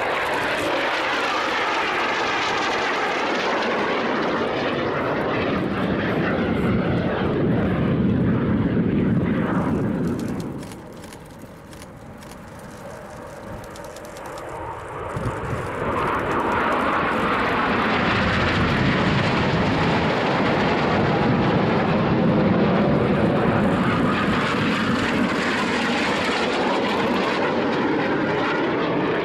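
Jet noise from Aermacchi MB-339 trainers, each with a single turbojet, flying aerobatics. A loud pass dies away about ten seconds in. A quieter stretch follows, then a second loud pass builds from about fifteen seconds in and holds to the end.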